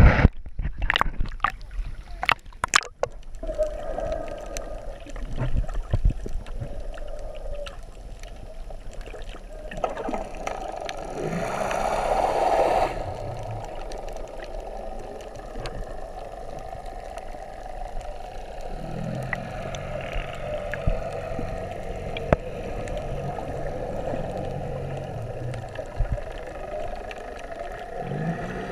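Splashing at the water's surface for the first few seconds, then muffled underwater sound from a submerged camera: a steady low hum with a louder bubbling rush about ten seconds in.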